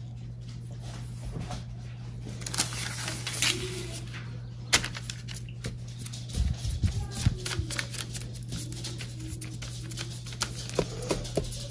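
Hands pressing and rubbing a sheet of thin paper down over a painted leaf: the paper rustles and crinkles, with scattered sharp taps. A steady low hum sits underneath.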